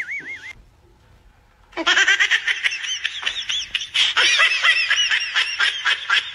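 A woman laughing hard in quick, high-pitched cackling bursts, starting about two seconds in. A warbling cartoon boing sound effect fades out in the first half second.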